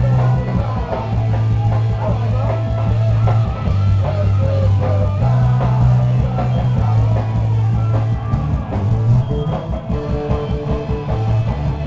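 Punk rock band playing live: distorted electric guitars, a bass line stepping between notes, and a driving drum kit.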